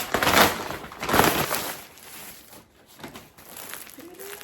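Plastic mailer bag being torn open and crinkled by hand: two loud rips in the first second and a half, then quieter rustling.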